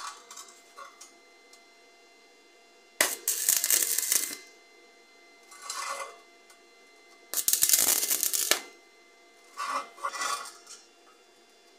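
Stick (arc) welder's arc crackling in four separate short welds, the second and third longest at about a second each, as bolts are welded onto steel. Small handling clicks come about a second in, before the first weld.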